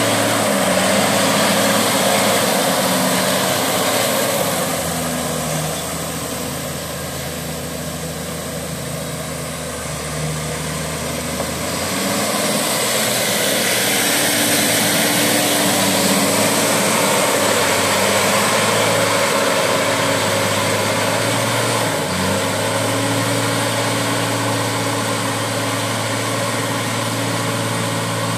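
Valtra T191 tractor's six-cylinder diesel engine running steadily under load as it drives a rear rotary implement through flooded paddy mud. It is quieter for a few seconds early on, then grows louder as the tractor passes close, a little before halfway.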